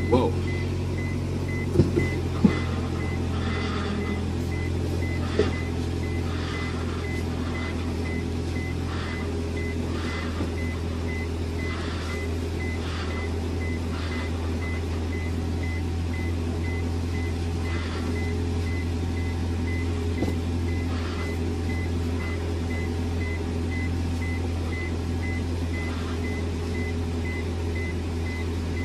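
Honda Accord's engine idling while the steering wheel is turned to bleed air from a newly filled power steering rack, the power steering making the annoying noise of air still in the fluid. A high beep repeats quickly throughout, and faint ticks come about once a second in the first half.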